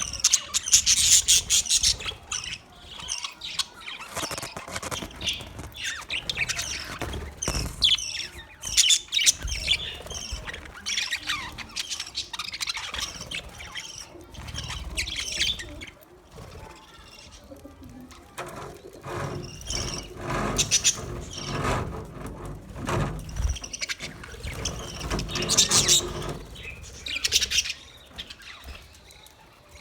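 Budgerigars chirping in quick, busy runs of short high calls, loudest near the start and again about three quarters of the way through.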